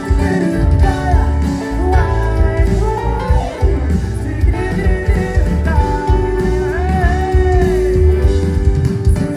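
Live band music with singing, amplified through a concert sound system: a heavy steady beat under sustained melodic lines, as a song plays out after its last chorus.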